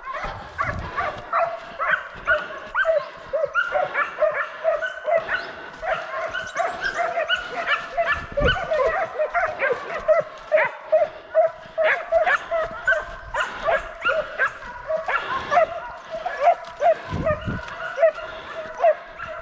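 Hunting dogs barking in a fast, unbroken series of short, high-pitched yelping barks, several a second: chase barking of hounds working wild boar.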